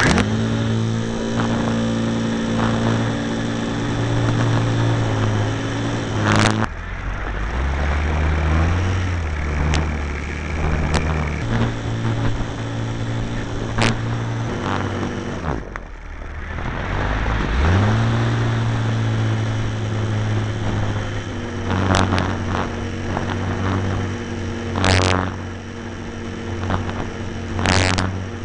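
Model airplane's motor and propeller running, heard up close on board: a steady buzzing hum whose pitch steps up and down with the throttle. It dies away a little past the middle and winds back up about two seconds later, with a few sharp cracks scattered through.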